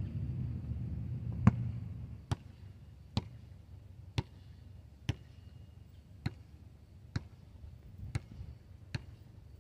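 Basketball bounced on asphalt about once a second in a slow, even dribble, each bounce fainter than the last. A low rumble fades out in the first two seconds.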